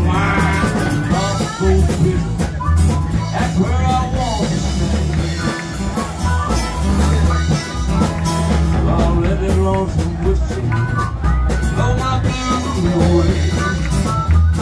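A man singing into a microphone while strumming an acoustic guitar, amplified through a PA in a live solo performance.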